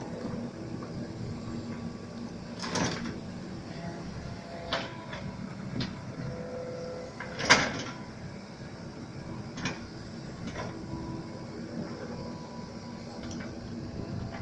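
Mini excavator working: a steady mechanical hum with a series of clanks and knocks, the loudest about seven and a half seconds in.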